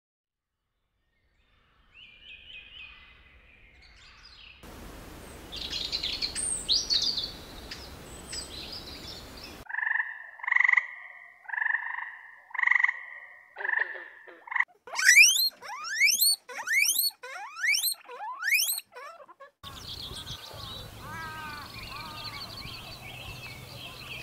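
A string of short animal-call clips cut one after another: faint chirps, a run of about five evenly spaced two-part calls, then about seven quick calls that sweep sharply downward in pitch, and further chirps over a steady background hiss.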